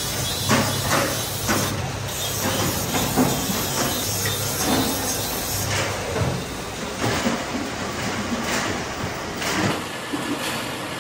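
Sheet-metal workshop noise: irregular knocks, roughly one a second, over a steady hiss, with a low hum that stops about six seconds in.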